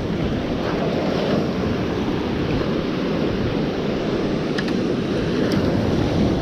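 Sea surf washing over rocks with wind buffeting the microphone: a steady, low rushing noise.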